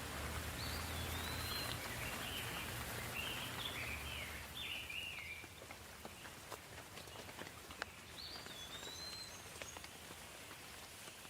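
Soft rain hissing steadily with scattered single drips, while a bird calls in short chirping phrases through the first half and once more near the end. The rain grows a little quieter about five seconds in.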